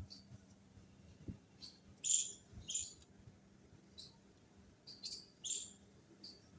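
A series of short, high-pitched chirps, with two louder pairs about half a second apart, about two seconds in and again about five seconds in.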